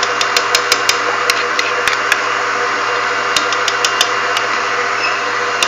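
Electric mixer running steadily, beating cake batter as blended banana is added, with scattered sharp clicks over its hum.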